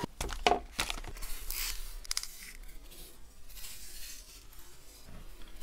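Gift wrapping rustling and crinkling as presents are opened by hand, a quick run of sharp crackles that thins out about halfway through.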